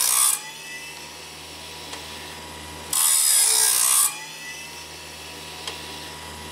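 Homemade automatic bandsaw blade sharpener made from an electric chainsaw sharpener, grinding the teeth of a bandsaw blade. Its abrasive wheel hisses against a tooth for about a second, with one grind ending just as the sound begins and another about three seconds in. Between grinds the wheel motor hums, its pitch climbing back up after each grind.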